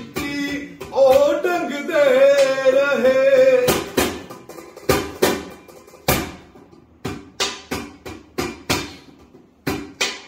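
A man singing a Punjabi song unaccompanied, holding one long wavering note. Then, while the voice pauses, a run of sharp percussive strikes keeps the beat, about three a second.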